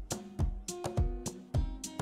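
Background music with plucked notes over a steady beat, about three to four hits a second.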